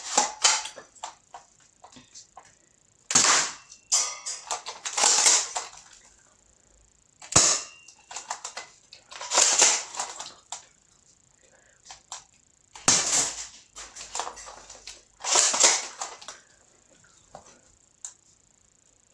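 Airsoft gun fired single shot at a time, about eight sharp shots spaced irregularly a second to a few seconds apart.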